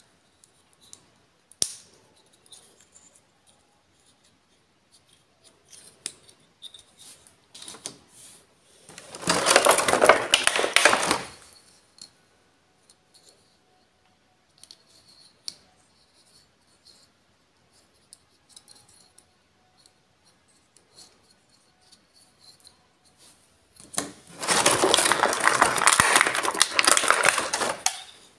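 Small plastic toy figures and a clear plastic blister tray being handled: scattered small clicks and taps, with two longer stretches of crackling plastic, one about nine seconds in lasting a couple of seconds and one near the end lasting about four.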